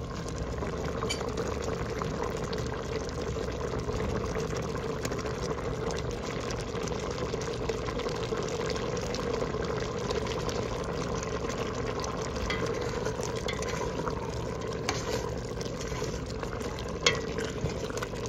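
Coconut milk simmering and bubbling in a stainless steel pot with glutinous rice balls (bilo-bilo), over a steady low hum. Near the end, one sharp clink as a metal spoon knocks the pot.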